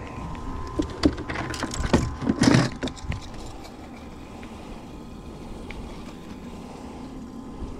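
A few sharp knocks and rattles of gear being handled in a fishing boat over the first three seconds, then the steady low hum of the boat's motor.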